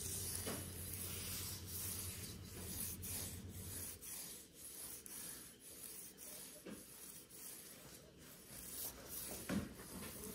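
Fingers scratching and rubbing across a woven plastic floor mat in a series of short scratchy strokes, with one sharp thump about nine and a half seconds in.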